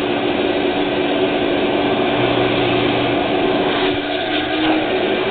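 Upholstery extraction machine's vacuum motor running steadily, with the metal upholstery hand tool working the fabric. A lower hum comes and goes twice under the steady whine.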